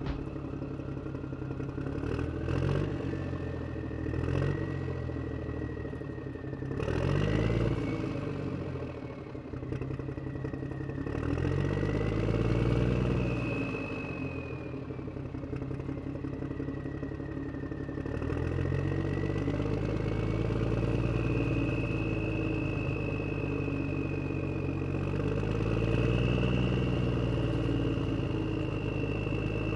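Simulated truck engine sound from a Huina 1573 remote-control dump truck's engine sound-effect module, idling and revving up in several swells that rise and fall. A high whine rises and falls along with it.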